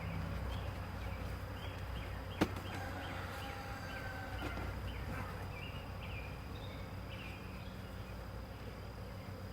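Many agitated honeybees buzzing in a steady hum around an opened hive, disturbed by the inspection. A single sharp click sounds about two and a half seconds in.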